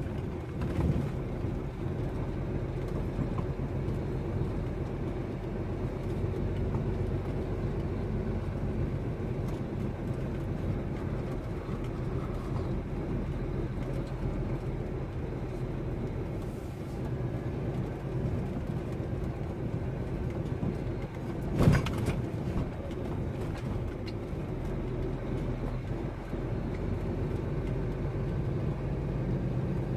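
Lorry engine running steadily at low speed, heard from inside the cab as it drives along a rough dirt track. A thump about a second in and a sharper knock about two-thirds of the way through stand out over the drone.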